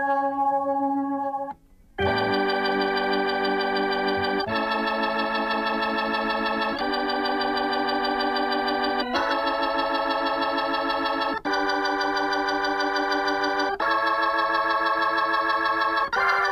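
Hammond B-3 organ playing on its own: a held note that stops about a second and a half in, then sustained chords that change about every two and a half seconds.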